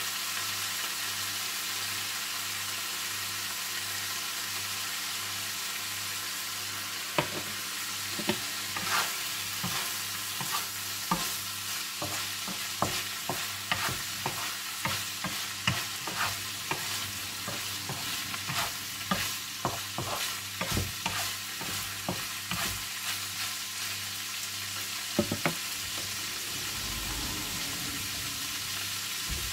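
Chicken strips frying in a pan with a steady sizzle. From about seven seconds in until near the end, a wooden spatula stirs them, clicking and scraping against the pan many times.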